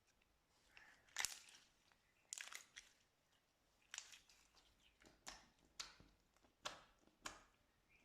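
Slime being squeezed and pressed by hand, giving a series of sharp crackling pops and squelches at irregular intervals, about one every half second to second.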